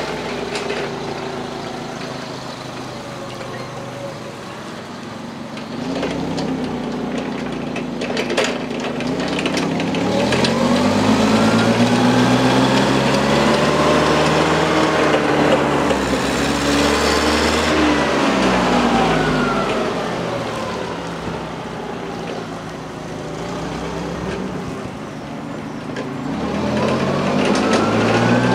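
Propane-fuelled forklift engine running as the forklift drives past, revving up and back down. It is loudest in the middle as it passes close, then fades and picks up again near the end.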